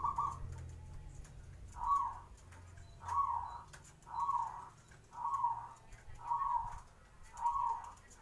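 Zebra dove (perkutut) cooing: a regular run of short, rounded coos about a second apart, six of them in a row after one that ends just as the run begins.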